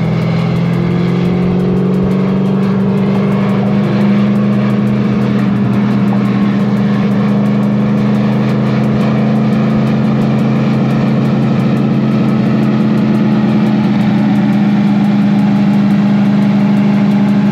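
Fox-body Mustang's 408 stroker Windsor V8 running at a steady highway cruise: a continuous engine drone that holds one pitch, with no revving.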